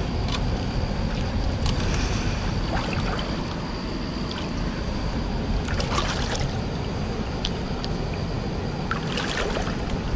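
A person wading through a shallow, rocky river: water sloshing and trickling around the legs over a steady low rumble, with a few short splashes as the feet and grabber tool move through the water, the clearest about two, six and nine seconds in.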